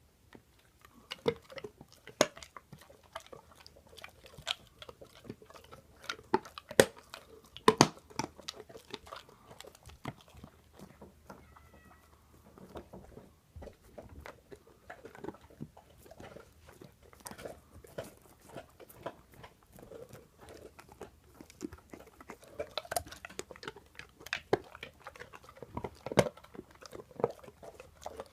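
English mastiff chewing and crunching a bone: irregular sharp cracks and gnawing, the loudest cracks about 7 to 8 seconds in.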